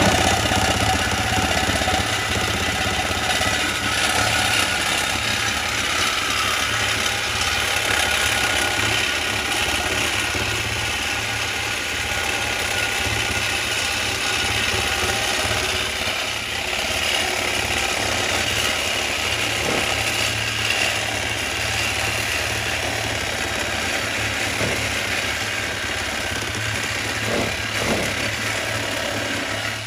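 BMW 328i's straight-six engine running steadily.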